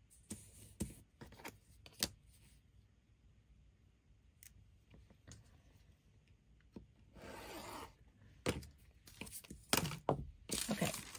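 Light taps and knocks of a quilting ruler and small weights being shifted on a cutting mat, then a rotary cutter drawn once along the ruler, slicing through photo fabric and parchment paper about seven seconds in. Near the end come several louder knocks as the ruler is lifted and set down, with parchment paper rustling.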